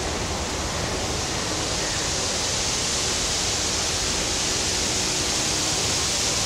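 Steady rushing of water, an even hiss with no break, over a faint steady low tone.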